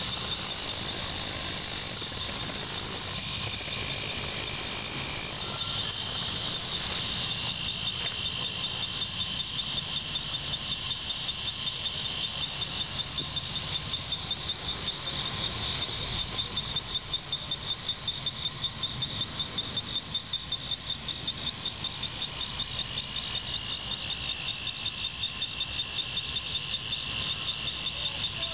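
Insects chirping in dense summer vegetation: a steady, high, fast-pulsing chorus that grows louder and more strongly rhythmic about a third of the way in.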